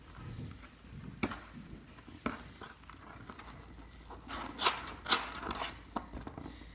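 Hands mixing and handling slime ingredients: scattered clicks and taps, and a louder run of scraping and rustling a little past the middle.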